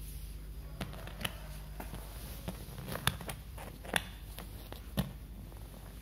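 Cloth rustling, with a scatter of short sharp clicks, as a baby's shirt is pulled on over its head and arms; the strongest clicks come about three, four and five seconds in.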